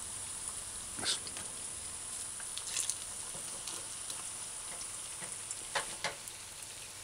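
Okra codfish fritters sizzling steadily in shallow oil in a stainless steel frying pan over medium-high heat. A few light clicks of a metal fork against the pan come as the fritters are turned: one about a second in, one near the middle, and two close together near the end.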